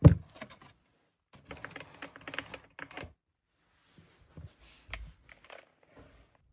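Typing on a mechanical keyboard with linear switches, a run of quick keystroke clicks in short bursts. A single loud knock comes at the very start, and the keystrokes thin out in the last couple of seconds.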